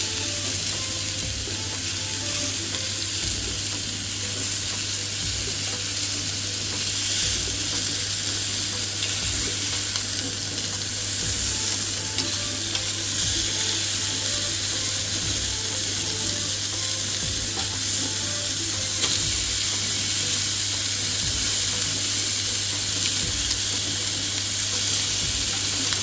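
Pork loin steaks sizzling on an electric grill: a steady frying hiss, with a low steady hum underneath.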